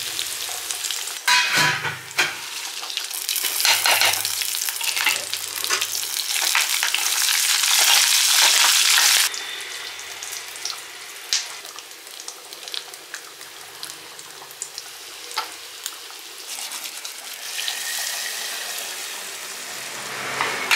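Hot oil sizzling in a steel kadai as ingredients fry, with a spatula scraping and stirring against the pan. The sizzle cuts down abruptly about nine seconds in to a quieter hiss with scattered ticks, then swells again near the end.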